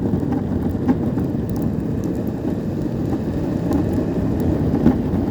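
EOVAN GTS Pro electric skateboard riding on 95mm polyurethane wheels, a steady rolling rumble with two brief ticks, about a second in and near the end. There is no regular knocking: the clicking came from a defective factory front wheel, and it is gone with the spare wheels fitted.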